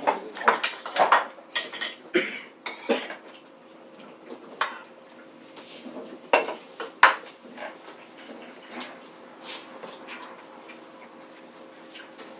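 Forks and chopsticks clinking and scraping against plates and bowls during eating: a quick run of clinks in the first few seconds, then a few scattered ones.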